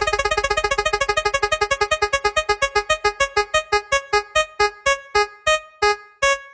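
A spinning-wheel sound effect: one electronic keyboard note plinked over and over, fast at first and steadily slowing until it stops near the end, like a prize wheel's ticks as the wheel runs down.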